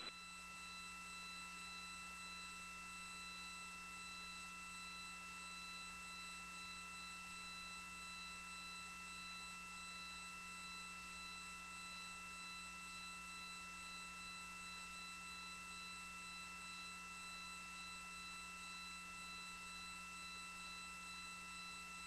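Faint steady electrical hum and hiss of an open launch-control communications loop between voice calls, made of several unchanging steady tones.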